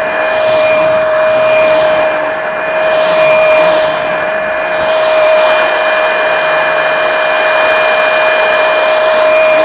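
Kubota skid steer's diesel engine and hydraulics running hard at high throttle: a loud, steady high whine over engine noise.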